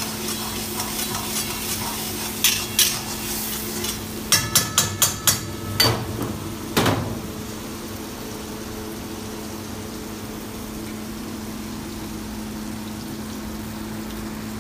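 Metal spatula stirring masala gravy in a black iron wok, knocking against the pan several times, including a quick run of about five sharp raps a little past four seconds and two last clanks before it is put down. For the rest, the gravy simmers and sizzles on the gas burner over a steady low hum.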